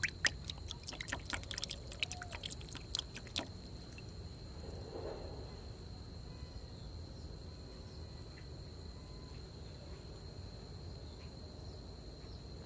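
Shallow pond water splashing and dripping, a quick run of sharp drips and splashes over the first three and a half seconds. Behind it, a steady high-pitched insect trill.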